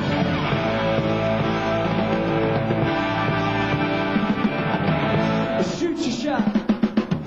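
Live rock band playing at full volume: electric guitar, bass and drums. Near the end a quick run of sharp drum hits, about eight in a second, stands out as a fill.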